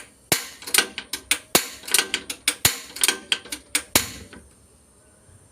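Gas stove's ignition knob being turned, its igniter clicking sharply about three or four times a second. The clicks stop about four seconds in, once the burner is lit.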